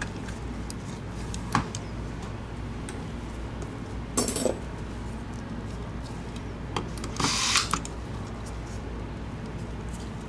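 Handling noise of a plastic computer mouse and small screws on a silicone work mat: a few light clicks, then two short scraping rustles about four and seven seconds in, the second longer, over a steady low hum.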